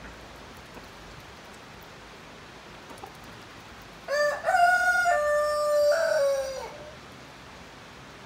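A rooster crows once about halfway through: a single long cock-a-doodle-doo in several held notes, ending on a falling tail, over a steady faint outdoor hiss.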